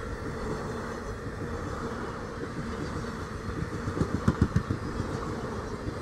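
Running noise of a moving Indian Railways passenger train heard from inside the coach at an open window: a steady rumble and rush, with a quick run of loud clacks from the wheels about four seconds in.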